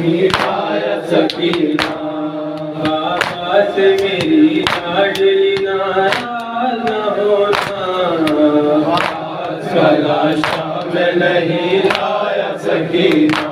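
Noha recited by a male lead voice with a group of men chanting along in unison, over sharp open-handed slaps of chest-beating (matam) landing about once a second.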